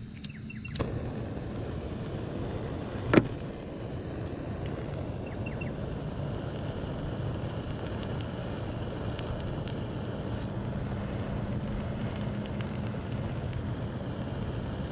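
Flamethrower lit a little under a second in and burning steadily with a rushing hiss, with one sharp click about three seconds in.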